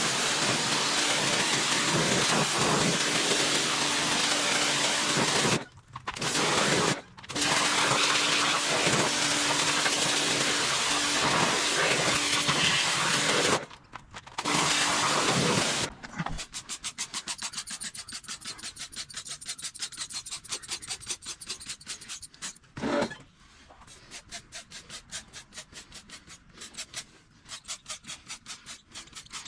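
Pressure washer spraying water, with a steady motor hum under the hiss of the spray. It cuts out briefly three times as the trigger is released, then stops about 16 seconds in. A quieter, rapid, rhythmic scratching follows.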